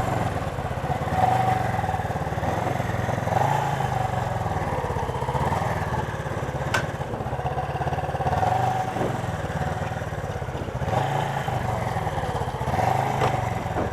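1977 Suzuki GS400's two-cylinder engine idling while it warms up, its note swelling slightly every couple of seconds. A single sharp click sounds about seven seconds in.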